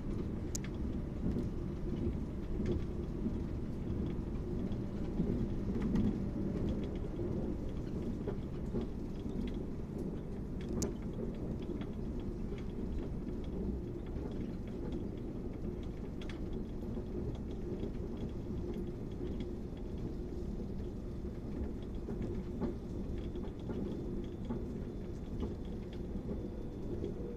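Steady low rumble inside the passenger car of an electric suburban train running along the line, with wheels on the rails and a few faint clicks.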